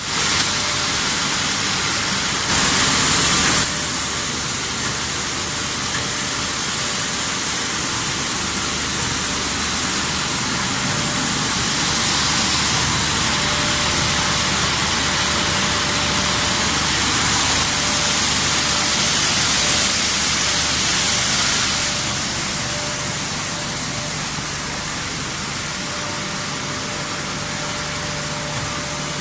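Steady running noise of a parallel twin-screw granulation extrusion line and its plant machinery: a dense hiss with a faint steady hum tone. The hiss swells briefly about three seconds in and again through much of the middle.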